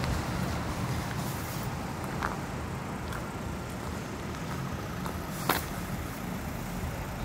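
Steady low background rumble, with a few light clicks and one sharp click about five and a half seconds in.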